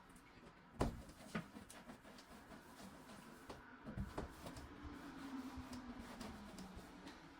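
Quiet kitchen with a few soft knocks and clicks, the loudest about a second in and another pair around four seconds, as things are handled during cleaning, with a faint steady hum in the second half.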